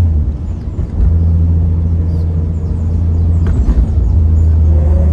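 Car engine and road noise heard from inside the cabin while cruising at low speed, a steady low drone that dips briefly in the first second and then holds even.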